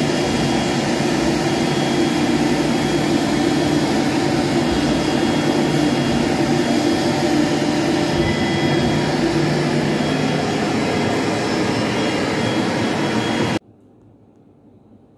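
Omni 1325 CNC router spindle and bit milling 10 mm forex PVC foam board: a loud, steady whirring rush with a thin high whine over it. It stops abruptly near the end, leaving only faint room sound.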